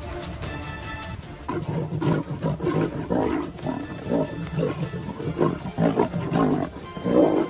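Lion growling and snarling in a rapid string of short, rough bursts while it attacks a cheetah. The growls start about a second and a half in, over background music.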